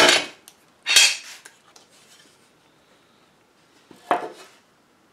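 Metal bar clamps and wooden boards of a router jig clattering as they are taken apart on a workbench: loud clanks at the start, about a second in, and again about four seconds in.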